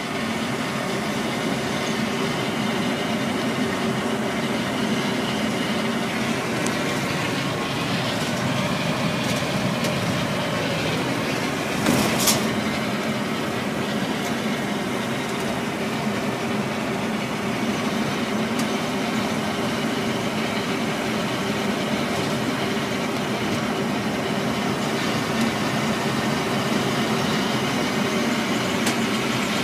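Steady running of a 1968 GMC 4903 Buffalo coach's diesel engine at highway cruising speed, with road and wind noise, heard inside the coach. A short knock about twelve seconds in.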